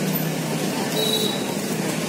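Steady hum of idling motorcycle engines, with people's voices in the background.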